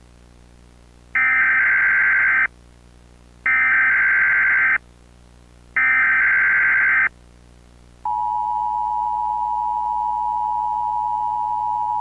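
Emergency Alert System SAME header: three identical digital data bursts of about a second and a half each, a second apart. About eight seconds in, the steady two-tone EAS attention signal begins and holds.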